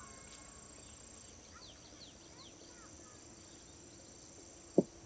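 Insects chirring steadily on a high note, with a few short bird chirps in the first half. A single sharp thump near the end is the loudest sound.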